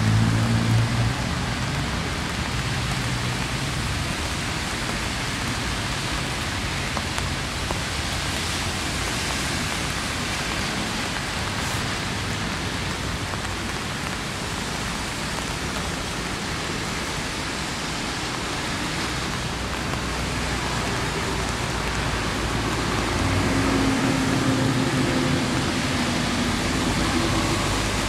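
Steady rain falling on wet ground and puddles. Low traffic rumble underneath swells briefly about a second in and again near the end.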